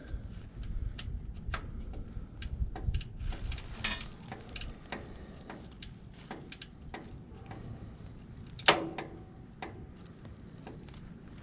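Ratchet wrench clicking a few clicks at a time, irregularly, as a starter mounting bolt is worked in by hand in a cramped space. One louder sound about nine seconds in.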